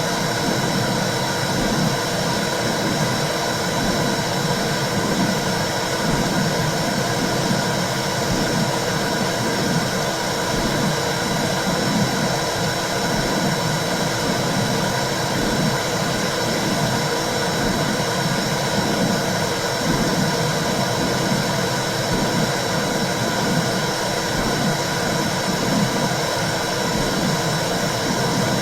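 Womb sound for soothing babies: a loud, steady, dense whooshing noise with an uneven, fluttering low rumble underneath, unchanging throughout.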